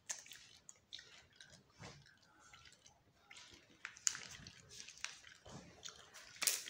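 Irregular rustling and crinkling of clothing and packaging being handled, with a couple of sharper clicks about four seconds in and near the end.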